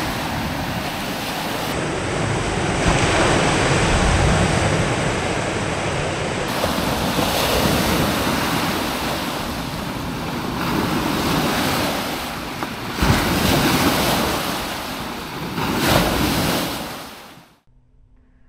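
Loud rush of wind and water at the river's edge, swelling and easing in gusts, with wind buffeting the microphone; it cuts off suddenly near the end.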